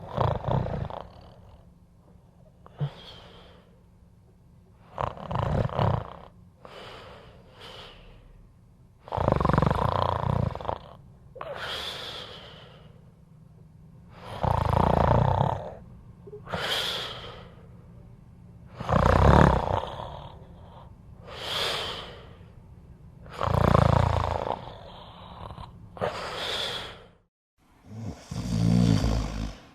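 A person snoring loudly: a rough, rattling snore on each in-breath about every four to five seconds, each followed by a shorter, hissier out-breath.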